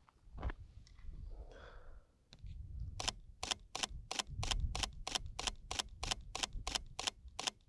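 Camera shutter firing in rapid succession, about four clicks a second starting about three seconds in, as a burst of flat-calibration frames is taken; a few single clicks and a low rumble come before.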